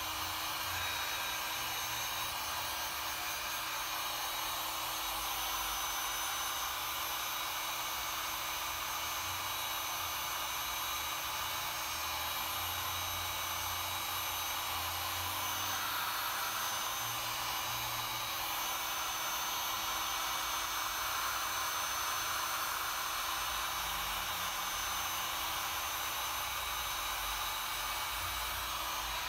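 Handheld electric heat gun running steadily: a constant rush of blown air with a steady motor hum, held over wet epoxy resin to spread the white layer into foam-like cells.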